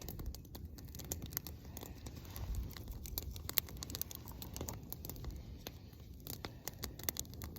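Irregular small crackles and clicks over a low rumble, the sound of twigs, bark and brush being shifted and stepped on.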